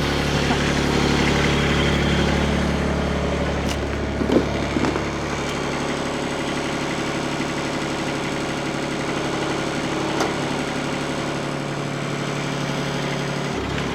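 Mini excavator's Kubota D902 three-cylinder diesel engine idling steadily, with a brief knock about four seconds in.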